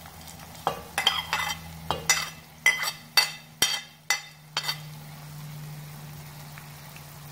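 A steel spoon scrapes and clinks against a ceramic plate and a steel pot as fried bitter gourd slices are pushed into the pot: about ten sharp scrapes in the first five seconds, over a steady low hum.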